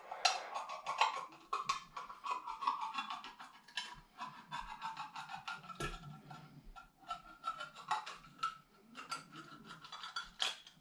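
Old army-issue hand tin opener levered around the rim of a small cat food tin, cutting off the lid: a quick, irregular run of small metallic clicks and scrapes, several a second.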